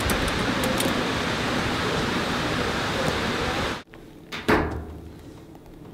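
Outdoor street ambience: a steady rushing noise that cuts off abruptly about four seconds in. Quieter indoor room tone follows, with a single thump about half a second later.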